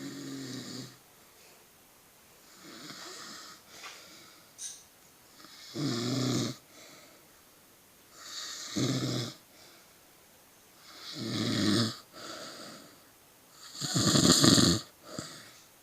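A man snoring in his sleep, a snore about every two to three seconds with softer breaths between; the last snore, near the end, is the loudest.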